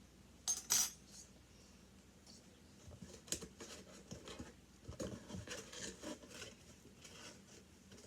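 Kitchen utensils handled while measuring baking soda into a bowl: two sharp clinks about half a second in, then soft scraping and light tapping.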